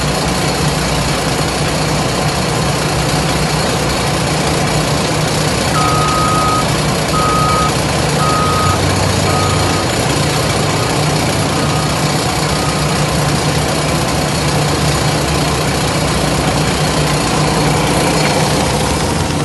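Heavy diesel machinery running steadily: a Powerscreen Chieftain 2200 2D screening plant working sand while a wheel loader runs alongside. A few seconds in, a reversing alarm beeps about half a dozen times, growing fainter.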